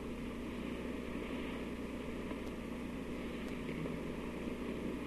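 Steady hiss and low hum of an old 1950s recording during a pause in speech, with no other distinct sound.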